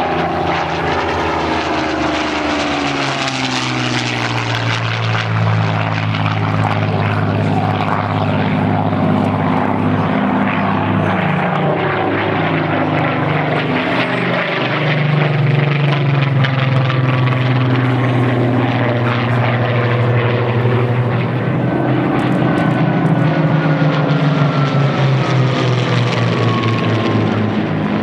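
Spitfire and Hurricane fighters' V12 piston engines droning steadily in a flypast. The pitch slides down as an aircraft passes near the start, and again late on.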